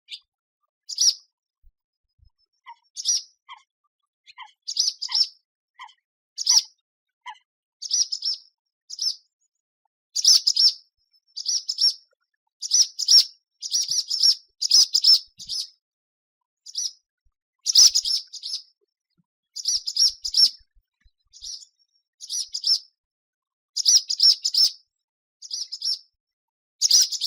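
Swallow calling: short, high chirps in quick clusters of two to four, repeated about once a second. A few fainter, lower notes come in between them during the first seven seconds or so.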